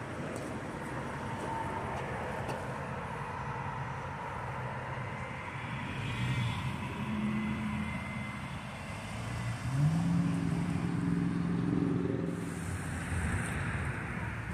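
Car engine running as the car drives off, stepping up in pitch about ten seconds in as it accelerates, over steady road noise.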